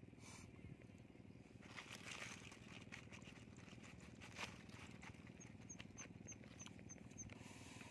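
Near silence: faint outdoor background with scattered light ticks, and a quick run of six faint high chirps, about three a second, near the end.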